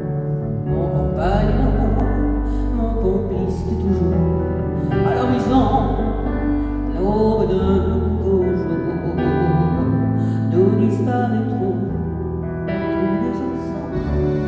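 A woman sings a French chanson live, in phrases, over band accompaniment with sustained low chords underneath.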